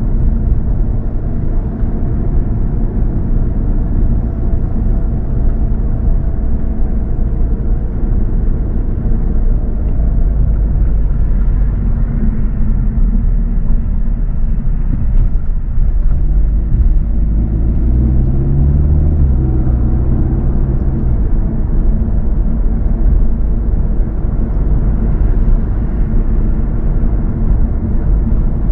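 Car driving: a steady low rumble of road and engine noise. A low droning note comes in for a few seconds about two-thirds of the way through.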